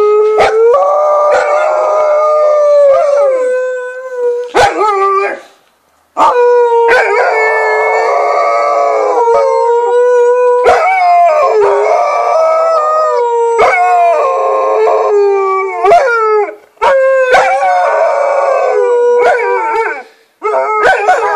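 Two husky-type dogs howling together in long, drawn-out, overlapping howls that slide in pitch at their ends, with short pauses about five seconds in and twice near the end.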